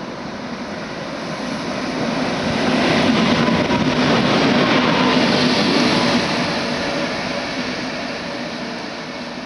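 Two British Rail Class 86 electric locomotives passing through a station at speed. The rumble of wheels on rail, with a hum underneath, builds, is loudest for a few seconds as they go by, then fades as they draw away.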